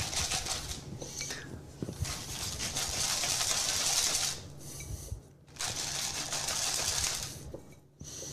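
Hand pepper grinder being twisted over the tuna, a fast crackly grating of peppercorns being cracked. It comes in three spells with short pauses between.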